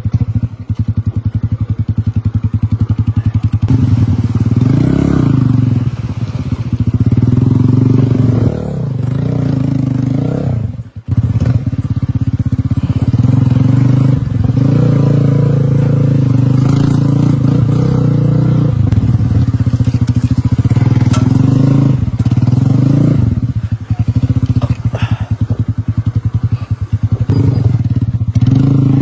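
Classic scrambler motorcycle engine running while ridden. Its pitch rises and falls repeatedly with throttle and gear changes, and the sound drops out briefly about eleven seconds in.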